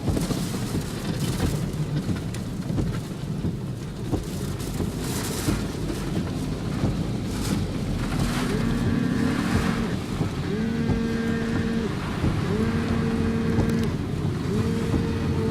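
Typhoon wind and rain buffeting a car, heard from inside as a steady rumble with sharp gusts and rain spatters. From about halfway, a low sustained tone, like a horn or alarm, sounds four times at regular intervals, each lasting over a second.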